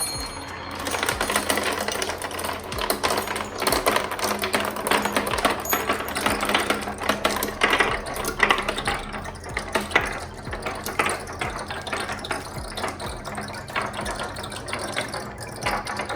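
A pack of marbles rolling down a marble-run track, clicking and clattering against each other and the track in a dense, irregular stream.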